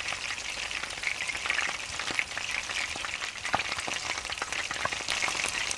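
Oil sizzling in a hot pan: a steady crackling hiss with many scattered small pops.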